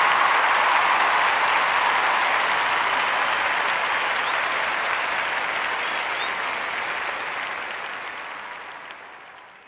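Crowd applauding, a dense even clapping that fades out gradually over the last few seconds.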